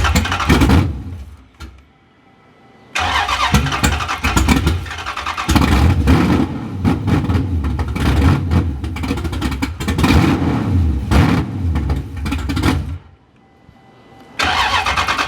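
Dodge Scat Pack's 6.4-litre HEMI V8 with a stage 6 camshaft, on its first start-ups after the cam install and new tune: it dies about a second in, fires again about three seconds in and runs with the revs rising and falling for about ten seconds, then stalls suddenly and fires once more near the end. The engine is not yet holding a run on its own.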